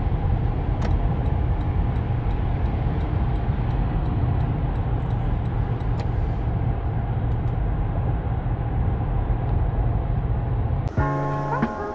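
Steady cabin noise of a 2020 Toyota Land Cruiser cruising at motorway speed: a low engine and road rumble with tyre hiss. About a second in, light regular ticking at about three a second runs for roughly four seconds. Music comes in near the end.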